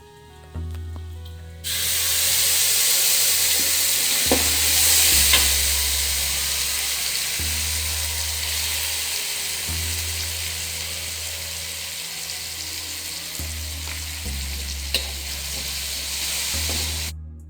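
Anchovies frying in hot oil in a pan with a blended chili, onion and garlic paste, sizzling loudly. The sizzle starts about two seconds in and cuts off suddenly just before the end, with a few sharp knocks from stirring along the way.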